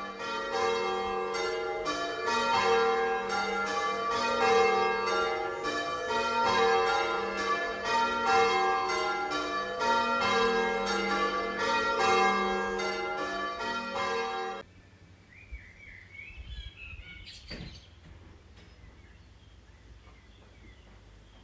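Church tower bells rung in change ringing by ringers on ropes: a fast, even run of strikes on bells of several pitches. The ringing cuts off abruptly about fifteen seconds in, leaving faint birdsong.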